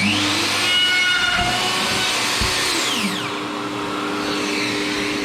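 Festool OF 1400 plunge router switched on and spinning up to full speed, then running with a steady high whine while its 8 mm drill bit bores a hole in wood. Its pitch drops briefly about three seconds in.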